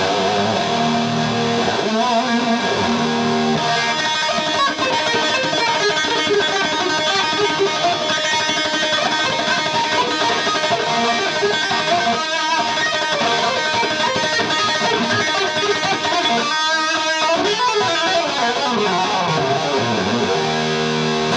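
Electric guitar played solo through an amplifier, a continuous run of notes and chords, with falling slides in pitch in the last few seconds.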